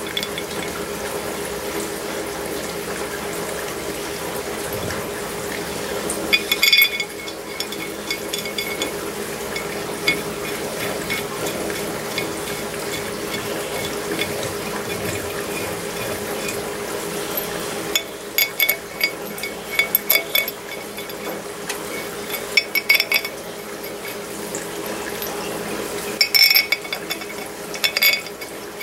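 Steel bolts clinking against each other and the cast-iron head of a Farmall touch control unit as they are picked up and threaded in by hand. The clinks come in several short bursts of sharp clicks, over a steady background hum.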